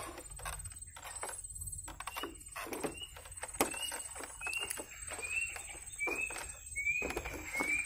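Footsteps on a lashed bamboo footbridge with knocks and clicks. From about two seconds in, a short high squeak comes roughly every ¾ second.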